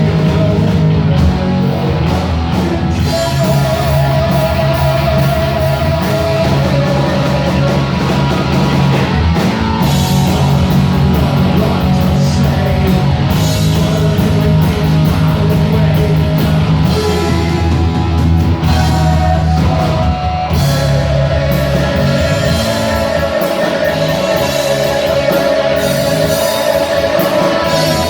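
Heavy metal band playing live and loud, led by electric guitar, with long held guitar notes in places.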